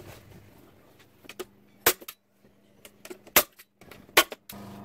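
Staple gun firing staples through black fabric into a wooden board: three sharp snaps roughly a second apart, with a couple of fainter clicks just before. A steady low hum comes in near the end.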